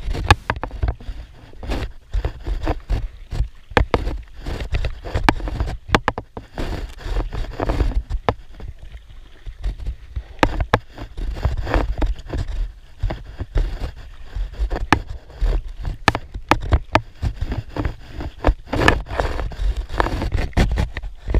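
Paddle strokes from a Decathlon Itiwit 1 inflatable kayak: the aluminium double-bladed paddle splashing and dripping in the water, with frequent small knocks and clicks, over a continuous low rumble.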